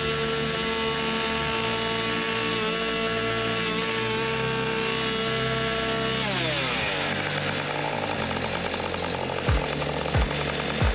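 Chainsaw mounted in an Alaskan-style chainsaw mill running at a steady high rev. About six seconds in its pitch drops as it bogs into the log, and the rough noise of the chain ripping lengthwise through the wood takes over. Near the end a regular low thudding beat comes in, about one thud every 0.7 s.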